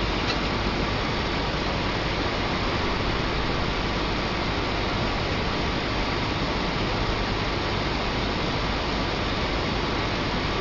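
Steady, even hiss with a faint low hum beneath it, unchanging throughout.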